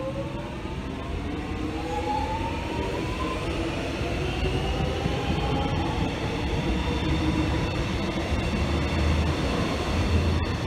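X'Trapolis electric train pulling away from a station, its traction motors whining with several tones that climb in pitch over the first few seconds as it gathers speed. Underneath is a steady rumble of wheels on the rails.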